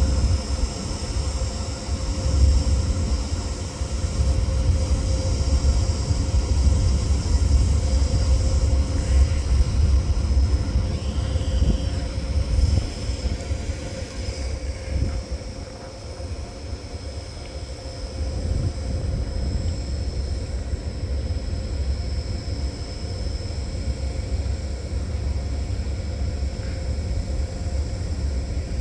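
A train passing through a station: a low rumble, loudest in the first half, easing off about halfway through, with steady high whining tones throughout.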